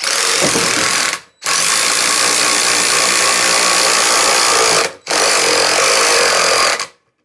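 DeWalt DCF885 brushed 20V impact driver hammering a long lag bolt into wood, very loud. It runs in three bursts, with short breaks about a second in and about five seconds in.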